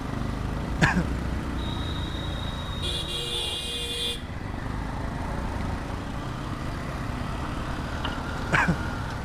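Yamaha MT-15's single-cylinder engine running steadily on the move, with a low road and wind rumble. About three seconds in, a vehicle horn sounds for about a second.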